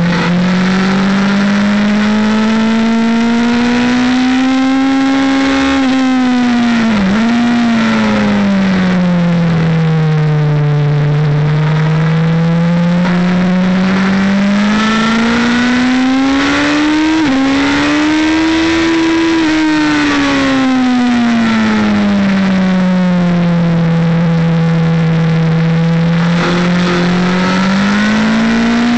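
A race motorbike's engine heard from on board, its pitch rising and falling smoothly as the rider works through the corners. There is a brief dip in pitch about seven seconds in and a sudden step up in pitch about seventeen seconds in, over steady wind and road noise.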